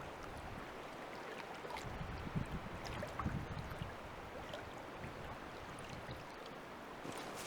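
Small lake waves lapping and gurgling gently, with a few louder sloshes about two to four seconds in.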